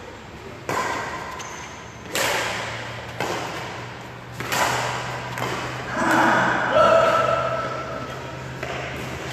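Badminton rackets hitting a shuttlecock four times in a rally, each hit a sharp crack echoing in the hall, about a second or so apart; from about six seconds in, voices call out.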